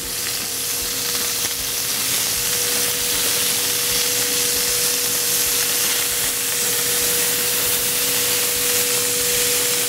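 Chicken pieces sizzling in an oiled grill pan as they are turned with tongs, a steady hiss from the hot fat. A steady low hum runs underneath.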